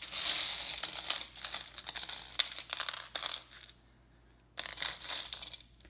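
Costume jewelry being handled and sorted by hand on a tabletop: a rustle with many small metallic clicks for about three and a half seconds, then a second short burst of handling near the end.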